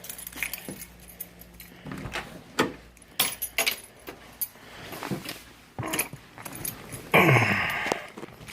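Car keys jangling, with scattered clicks and knocks. About seven seconds in comes a louder, brief noisy burst whose pitch falls.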